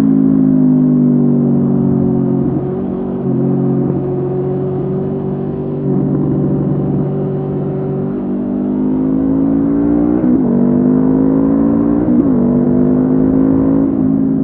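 Honda CB500F's parallel-twin engine through a Mivv GP Pro exhaust, under way. Its note eases early on, then climbs as the bike accelerates through the gears, with two quick upshifts in the last third.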